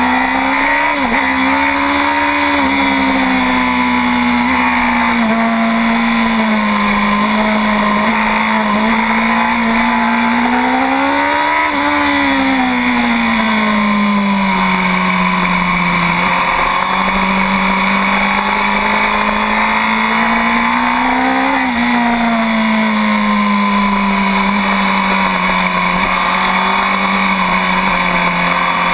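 2009 Honda CBR1000RR superbike's inline-four engine ridden hard on track, heard from on board. Its pitch climbs to high revs about a second in, again near the middle and again about three-quarters through, falling away in between.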